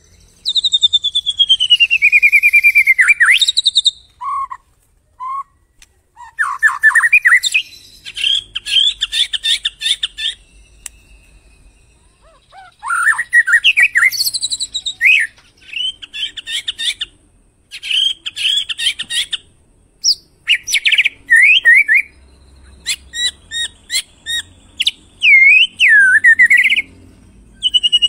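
White-rumped shama (murai batu) singing a loud, varied masteran song: clear whistled phrases, sweeping notes and fast trills, one after another with short pauses between them.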